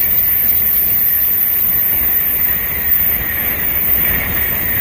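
Tokaido Shinkansen bullet train passing at speed: a loud, steady rush of wheels on rail and air.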